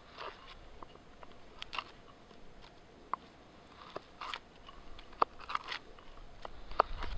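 A knife blade slicing and scraping shavings off the handle of a wooden mallet: a series of short, irregularly spaced cutting strokes as the handle is trimmed down to its stop cut.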